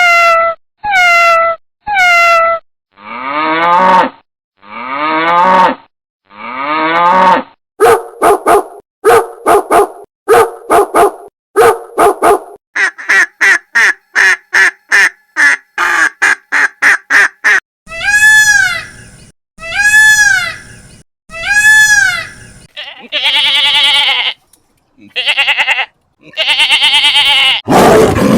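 A sequence of recorded animal calls, one kind after another, each repeated in a short group: first two meows of a domestic cat, then several different farm-animal calls, including quick runs of short calls and longer drawn-out cries.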